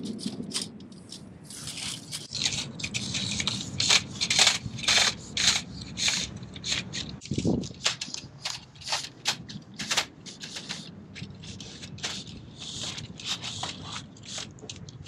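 Privacy slats being pushed through chain link fence mesh: a rapid, irregular run of scrapes and clicks as each slat rubs and catches past the wire, with a dull bump about halfway through.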